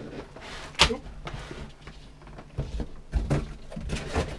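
Cardboard box and packing inserts being handled: a sharp knock about a second in, then a string of knocks, thumps and scrapes.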